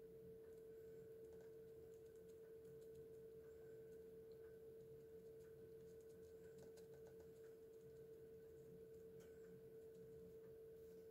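Near silence: room tone with a faint steady hum on one unchanging tone, and a few very faint scattered ticks.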